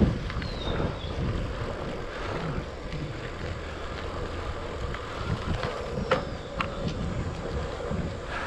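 Wind rushing over the microphone and a low rumble from the tyres of a Cannondale Bad Boy 4 bicycle rolling along a paved road. Two short sharp clicks about six seconds in.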